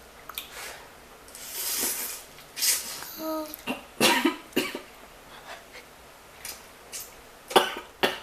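A woman coughing and clearing her throat in a run of short coughs, the sharpest near the end, with noodles stuck in her throat while eating spicy ramyon.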